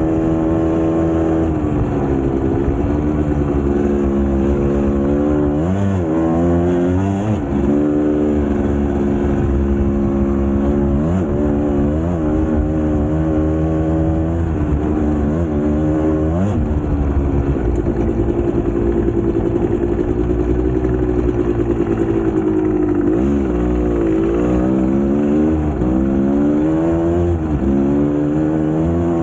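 GasGas two-stroke enduro motorcycle engine running under load while being ridden. The revs climb and drop several times, with a longer steady stretch past the middle.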